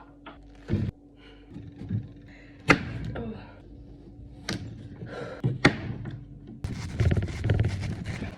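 Kitchen handling sounds: a dull thunk, then several sharp knocks of things being set down, and a busier stretch of rustling and knocking near the end, over a faint steady hum.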